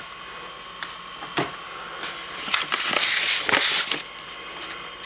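Rummaging through belongings: a few sharp knocks as things are moved, with a rustling, shuffling noise that swells about two seconds in and dies down near the end.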